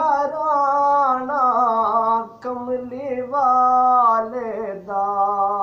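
A man singing a Punjabi naat unaccompanied, drawing out long held notes with a wavering pitch. Near the end the voice steps down lower for the closing phrase.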